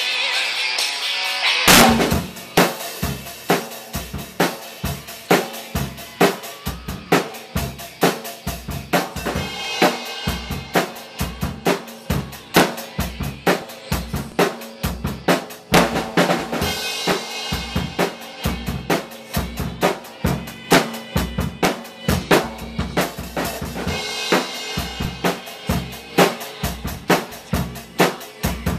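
Drum kit played solo: after the tail of guitar music, a loud hit about two seconds in starts a fast groove of bass drum, snare and hi-hat, with cymbal washes swelling in every several seconds.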